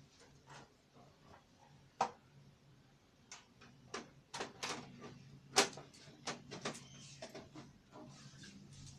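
Irregular clicks, taps and knocks of computer hardware being handled and fitted, the loudest about two seconds in and another just past the middle, over a faint steady low hum.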